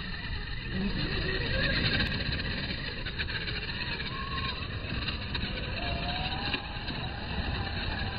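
Scale RC crawler trucks climbing a loose dirt hill: the whine of their electric motors and geartrains rising and falling with the throttle, over tyres scrabbling in the soil.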